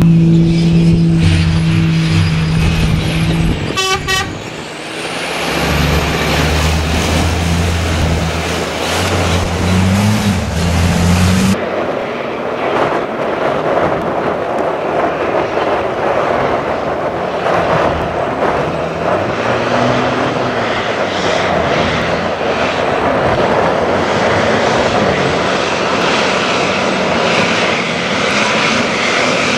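Tatra Dakar rally truck's engine running hard as the truck drives past, in several spliced takes that change abruptly about four and twelve seconds in. In the later part a loud rushing noise carries the engine note, which rises and falls as the truck passes.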